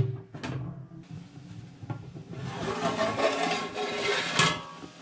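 An aluminium pot lid clanks a few times near the start. Then boiling water hisses and bubbles in the open steaming pot for about two seconds, ending in a sharp clink, over faint background music.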